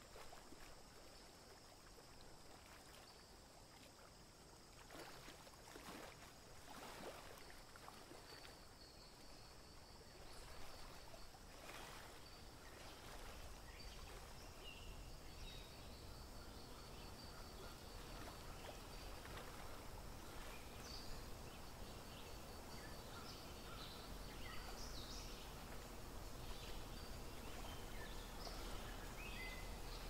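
Faint outdoor wetland ambience: a low, even hiss of background noise, with scattered short, high bird chirps in the second half.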